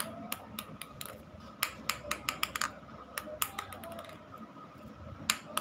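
Irregular light clicks and taps, a few in quick succession at a time, over a faint steady hum.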